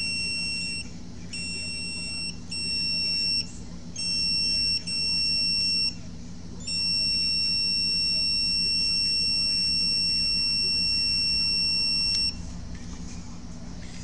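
A multimeter's continuity buzzer beeps in on-and-off stretches of about a second, then sounds one steady beep for about five seconds before cutting off, while the probe rests on a capacitor that tested bad. Beeping there means the capacitor is shorted to ground. A low steady hum runs underneath.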